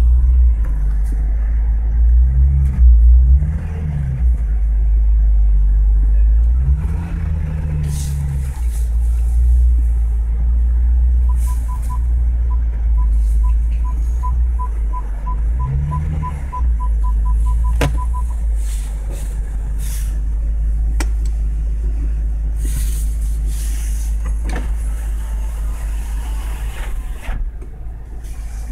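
BMW engine running heavy and low, heard from inside the cabin, its pitch rising and falling briefly three times. In the middle, the parking-distance-sensor beeps come faster and faster as the car closes on an obstacle, then stop.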